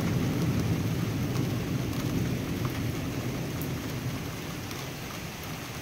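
Thunder rumbling low and slowly dying away, over the steady hiss of rain.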